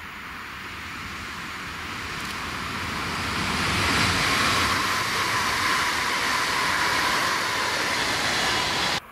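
Newag Impuls electric multiple unit passing on the line: a rush of wheels on the rails that builds, peaks about four seconds in and stays loud, then cuts off suddenly near the end.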